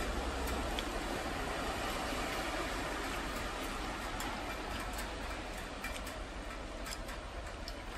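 Steady hiss of heavy rain falling, with a few faint clicks of metal chopsticks against the bowl.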